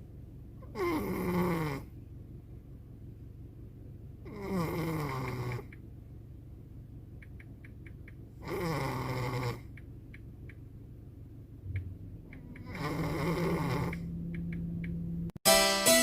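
Pomeranian–Chihuahua mix dog snoring loudly in its sleep: four snores about four seconds apart, each about a second long and falling in pitch. Keyboard music cuts in suddenly near the end.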